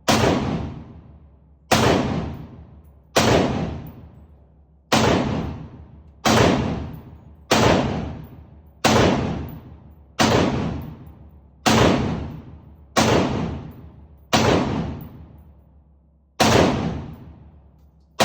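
AR-15 pistol firing slow, steady semi-automatic shots, about eleven of them, one every second and a half or so, with a slightly longer gap near the end. Each shot is a sharp crack followed by an echo that fades over about a second.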